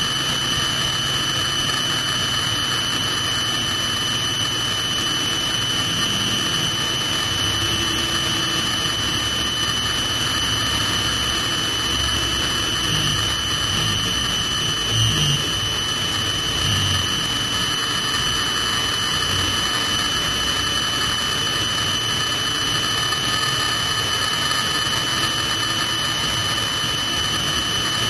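Helicopter's turbine engine running on the ground, a steady high-pitched whine over a lower steady drone.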